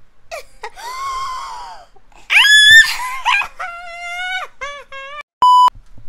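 A toddler squealing and crying out in a string of high-pitched vocal shrieks, the loudest about two and a half seconds in, followed by shorter held cries. Near the end a short, steady electronic beep.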